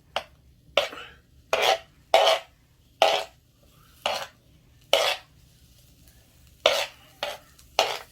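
A spatula scraping and stirring food in a frying pan, about ten quick strokes in a row roughly once a second.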